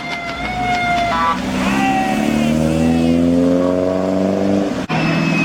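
A car engine revving up, its pitch climbing steadily for about three seconds, after a high steady squeal in the first second. The sound cuts off suddenly near the end.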